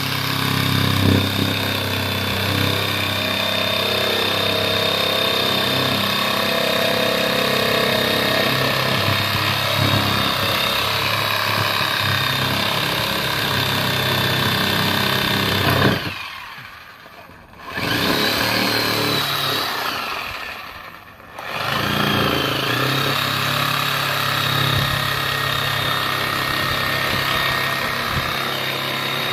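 Bee vacuum's motor running with a steady whine and hum. About halfway through it is switched off twice, briefly, and each time it starts again, its whine rising as it spins back up.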